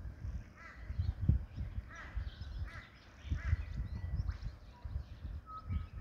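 Torresian crow calling in short caws, in several quick groups through the first four seconds, over low gusty wind buffeting on the microphone. Another bird gives a couple of brief thin whistles near the end.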